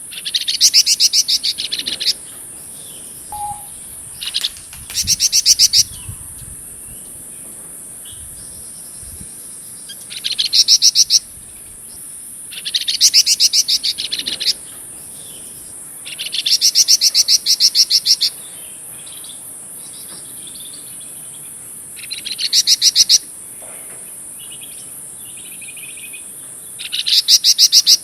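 A flamboyan songbird singing in full voice: seven bursts of fast, rattling pulsed trills, each one to two seconds long, every few seconds, with faint short warbles between them.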